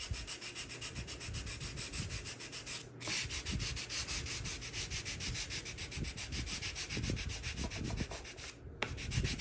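Hand sanding block with fine sandpaper rubbed rapidly back and forth over balsa wood, a rhythmic scratchy hiss, pausing briefly about three seconds in and again near the end. It is sanding a glued balsa patch down flush over a repaired hole.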